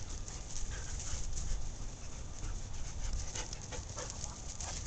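German shorthaired pointers, a puppy and adult dogs, panting and scuffling as they play rough on grass. Many short sharp noises throughout, over a steady low rumble.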